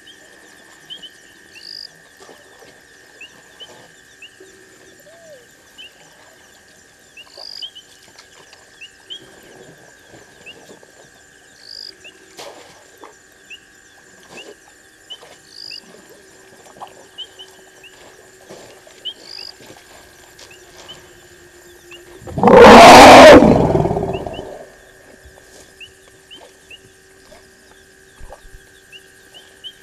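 A steady night-time insect trill, with a short high chirp about every two and a half seconds. About three-quarters of the way through, an African elephant gives one very loud call lasting about two seconds, then the trill goes on.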